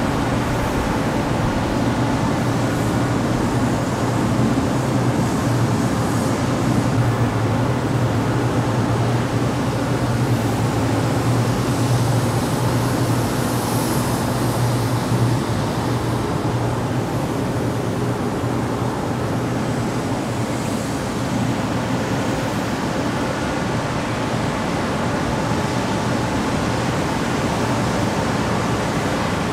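Industrial exhaust fan running steadily: an even rush of air over a low hum, which eases off a little about halfway through.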